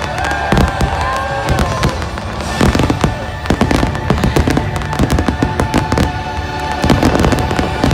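Fireworks finale: rapid, overlapping bangs and crackles of aerial shells bursting nonstop, over the show's soundtrack music.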